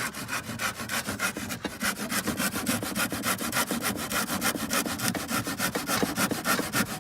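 Saw cutting through wood with quick, even strokes, several a second.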